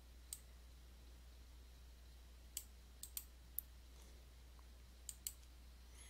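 Near silence with a faint low hum, broken by about seven light, scattered clicks at a computer desk, singly and in quick pairs.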